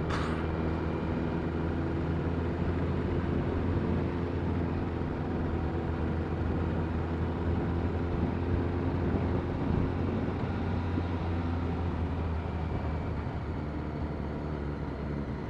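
Motorcycle engine running steadily at cruising speed, with road noise around it.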